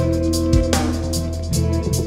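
Background music with a drum beat and steady sustained tones.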